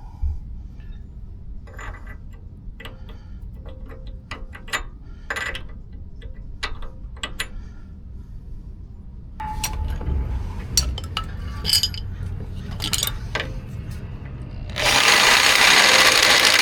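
Hand tools clinking and knocking on steel parts while working on a worn upper ball joint bushing in a steering knuckle, with scattered sharp clinks that get busier partway through. Near the end a loud, steady rush of noise lasts about two seconds, then cuts off.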